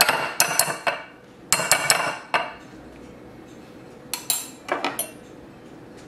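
Metal spoon clinking and knocking against a glass mixing bowl as scooped avocado is knocked off into it, in two quick clusters of ringing clinks; a few lighter knocks follow after a pause.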